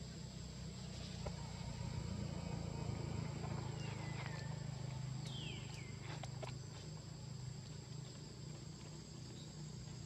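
Forest ambience: a steady high insect drone over a low background rumble, with two pairs of short falling chirps about four to six seconds in and a few faint clicks.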